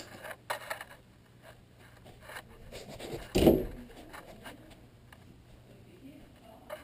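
Handling noise on a GoPro camera on carpet: scattered rubs and scrapes against the housing, and one loud thump about three and a half seconds in as the camera is bumped.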